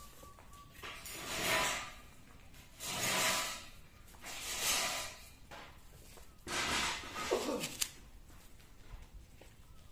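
Heavy tent canvas rustling and swishing as it is handled, in four separate swells each about a second long, with a couple of small clicks near the end.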